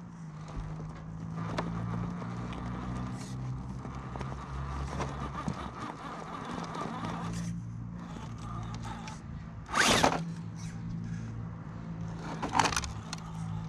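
Electric motor and gear drive of an Axial Early Bronco RC crawler whining as it crawls, the whine wavering with the throttle. A loud, brief clatter comes about ten seconds in, and a smaller one near the end.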